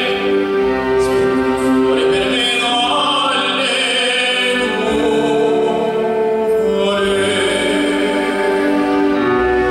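Live music: a singer holding long notes over a small ensemble of piano, electric guitar, congas and cello.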